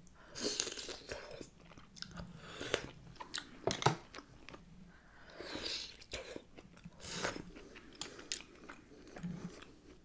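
Close-miked eating: a person biting and chewing seafood from a seafood boil, with crunchy bites and a few sharp clicks, the loudest about four seconds in.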